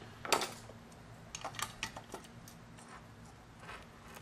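Small clicks and taps from handling a circuit board and its metal clamp: one sharper click just after the start, then a few lighter ticks about a second and a half in.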